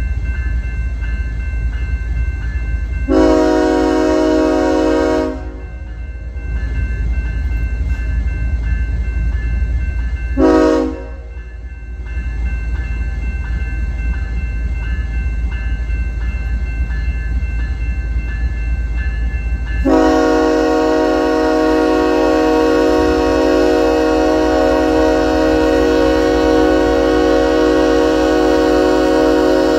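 Diesel locomotive air horn sounding a chord in three blasts: a long one, a short one several seconds later, and a long blast held from about two-thirds of the way in. The blasts are horn signals for a grade crossing. A steady low rumble of the train runs underneath.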